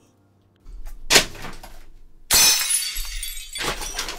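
Sound effect of household clatter: a knock about a second in, then a loud breaking crash about two seconds in that trails off, followed by more clattering near the end.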